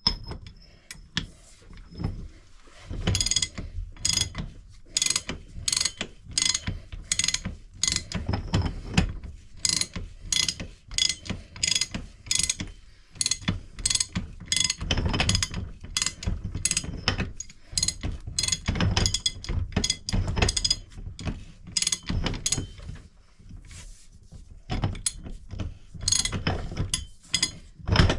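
Hand tool working on a hydraulic bottle jack as it is put back together after new seals: a long run of sharp mechanical clicks, about two to three a second, with a short pause about three-quarters through.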